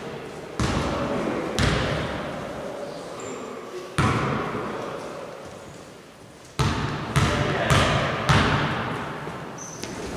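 Basketballs bouncing on a gym floor: about eight irregular thuds, each ringing on in the echo of a large hall.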